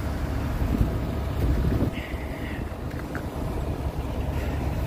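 Pickup truck engine idling with a low, steady sound, with wind buffeting the microphone.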